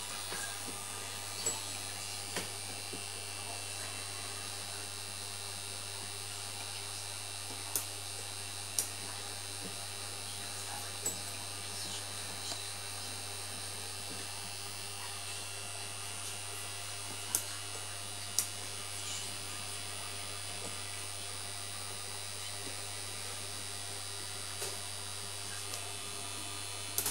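Home-built punched card reader running: a steady electric motor buzz and hum from its drive and gear train, with a few sharp isolated clicks from the mechanism.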